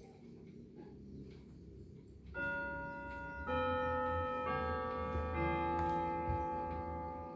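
Junghans clock movement ticking softly, then chiming four struck notes about a second apart, each at a different pitch and ringing on so the tones pile up.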